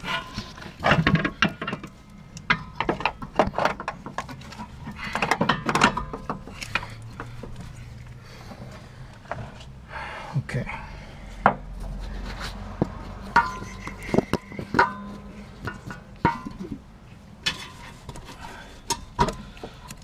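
Irregular clinks and knocks of metal parts, in clusters, as a car's rear shock absorber is handled and pushed up into its mount.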